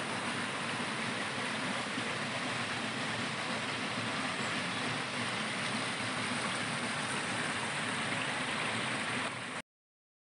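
Shallow moorland stream running over a stone bed: a steady rushing of water that cuts off abruptly near the end.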